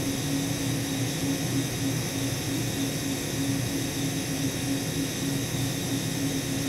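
Steady hum and hiss from the underfloor equipment of a stationary Tobu 6050 series electric train, with one held mid-low tone and no change in level.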